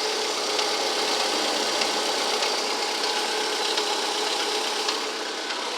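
VW Gol 1.0 8-valve four-cylinder engine idling with a steady hiss and light tic-tic ticking, the strange engine noise the owner is pointing out, its cause not yet known.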